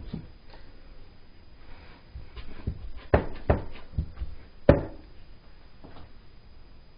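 A plastic spoon stirring thick brownie batter in a plastic mixing bowl: irregular knocks and scrapes of the spoon against the bowl, the loudest just under five seconds in.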